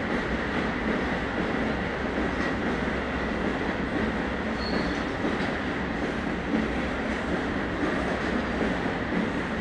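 Freight train of loaded car-carrier wagons rolling steadily past, a continuous rumble of wheels on rail with a faint steady high whine.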